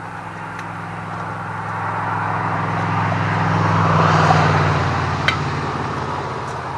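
A road vehicle passing by: engine and tyre noise rise to their loudest about four seconds in, then fade away. A small click sounds a little after five seconds.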